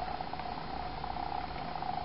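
Model railcar's small electric motor whirring steadily as it runs along the track, with a fine fast rattle from the wheels on the rails.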